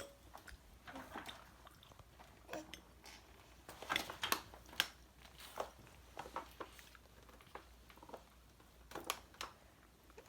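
Spoon clinking and scraping against a plate in short, irregular strokes, with soft chewing between them.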